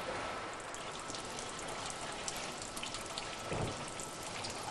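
Pool of transformer mineral oil, lit with a little gasoline, burning with a steady hiss and dense crackling. A low thump comes about three and a half seconds in.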